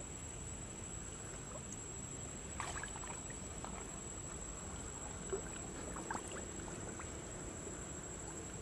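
Quiet shallow-water ambience: a steady low hiss with a few faint small splashes or drips, the first about a third of the way in and two more past the middle.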